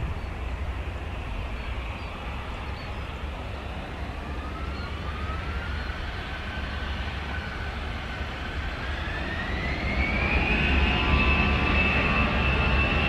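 Jet airliner's engines spooling up: a thin whine rises in pitch from about four seconds in, climbs again near the end and settles into a steady high whine as the engine noise grows louder, over a low rumble.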